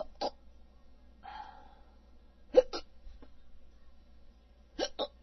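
A person hiccuping: three sharp hiccups about two and a half seconds apart, each a quick double catch, with a soft breathy sound between the first two.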